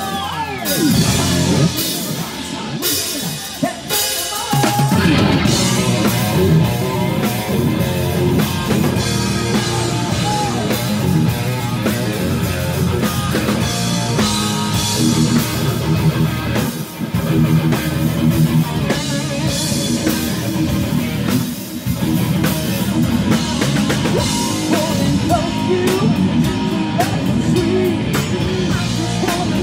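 Rock band playing with a drum kit and electric guitars; the full band comes in about four seconds in and drives on steadily.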